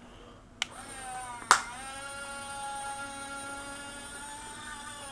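A click, then a sharper click about a second and a half in, under the steady high whine of a small toy electric motor with several overtones, its pitch dipping a little after the second click before settling.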